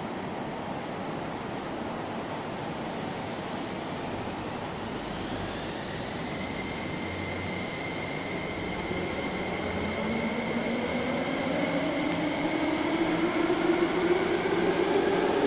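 Ma On Shan Line 8-car electric train pulling away from the platform. Its traction motors whine, rising in pitch and getting louder as it accelerates, starting about halfway through, over a steady hiss.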